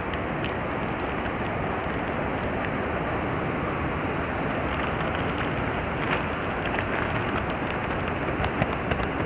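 Steady rushing background noise, with a few faint clicks and crinkles of a plastic zip-lock bag and foil being handled.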